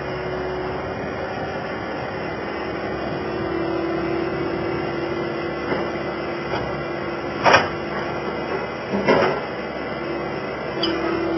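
Skid steer running steadily with a constant hum, and two sharp knocks about seven and a half and nine seconds in.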